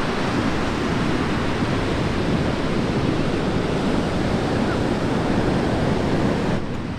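Heavy surf breaking, a steady wash of white water, with some wind on the microphone. The sound drops abruptly and turns duller near the end.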